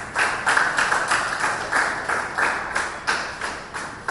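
Hand clapping in a steady rhythm, about three claps a second.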